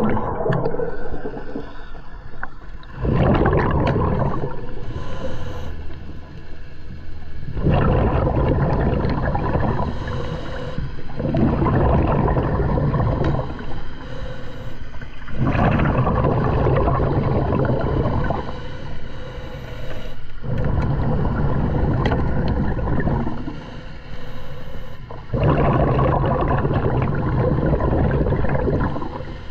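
Scuba diver breathing underwater through a regulator: loud bubbling exhalations of two to three seconds each, about every four to five seconds, with quieter inhalations between them.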